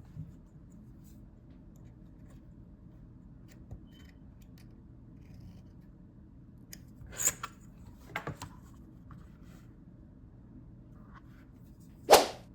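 Cowhide leather being cut by hand, a few short cutting sounds about seven and eight seconds in, and one loud short cut near the end.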